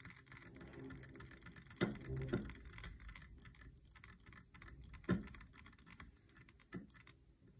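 Fly-tying thread being wrapped onto a hook from a bobbin holder: a faint, rapid run of fine ticks and clicks that stops about seven seconds in, with a few brief low bumps from handling, the loudest about five seconds in.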